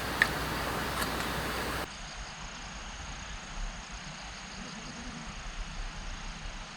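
Steady outdoor ambient noise with one sharp click about a quarter second in. About two seconds in the sound changes abruptly to a quieter ambience, with a faint, thin, high steady tone like insects.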